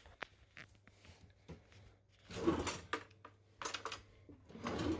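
Knife cutting through a crisp baked tortilla-wrap pizza: a few faint clicks, then three short scraping, crunching strokes about a second apart in the second half.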